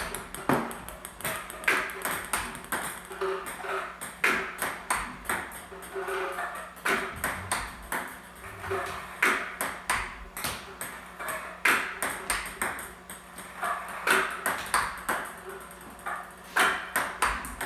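Table tennis ball being struck over and over with a rubber-faced paddle and bouncing on the table, a quick, even run of sharp clicks about one to two a second.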